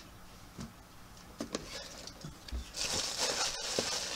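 Hands handling small squishy toys and their packaging: a few light taps and clicks, then a stretch of rustling and crinkling that starts about three seconds in.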